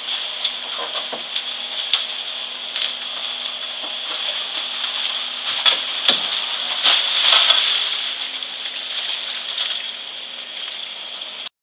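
Mini excavator running as it lifts a rusted steel heating-oil tank out of its pit: a steady hiss under a faint low hum, with scattered sharp knocks and scrapes that are busiest a little past the middle. The sound cuts off suddenly near the end.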